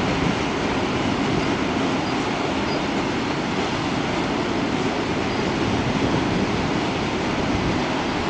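Loaded double-deck car-transport freight wagons rolling past, a steady, even noise of wheels running on the rails.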